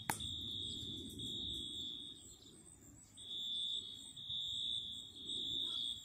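School fire alarm sounding, a steady high-pitched electronic tone, faint across the field. It breaks off for about a second near the middle and then resumes. A brief knock at the very start.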